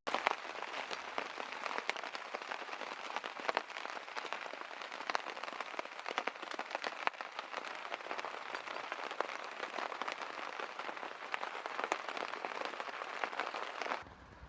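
Rain pattering steadily, a dense crackle of many small, sharp drop hits.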